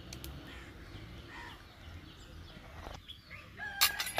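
Birds chirping and calling faintly over a steady outdoor background, then one sudden loud knock near the end.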